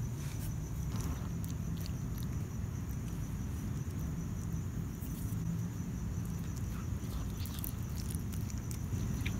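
Cat chewing on a rat, scattered wet clicks and crunches as it bites into the carcass. Over a steady, fast-pulsing high cricket trill and a low, continuous rumble.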